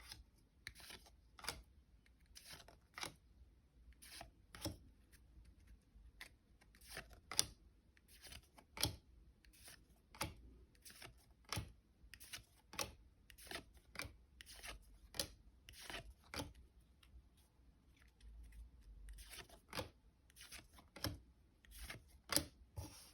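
Hands tearing open a trading-card pack wrapper and handling the cards: a long run of short, irregular crinkles and clicks, about one or two a second.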